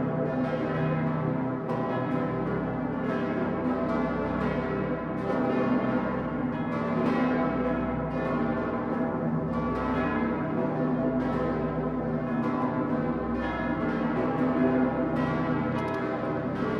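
The St. Peter's bell (Petersglocke, 'Dicker Pitter') of Cologne Cathedral ringing at midnight on New Year's Eve. Its heavy strokes come about every one and a half to two seconds over a deep, continuous hum.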